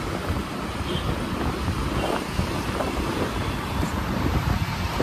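Wind buffeting the microphone over the steady running of a moving two-wheeler and surrounding road traffic, heard from the pillion seat at road speed.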